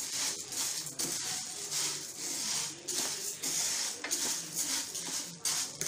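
Whole black urad dal grains being dry-roasted in a frying pan and stirred with a spatula: a rattling swish with each stroke, about two strokes a second.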